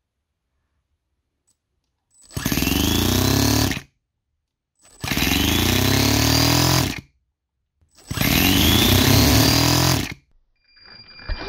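Toyan four-stroke nitro RC engine spun up in three short bursts of about one and a half seconds each, rising in pitch as it spins up and then levelling off, each cut off sharply.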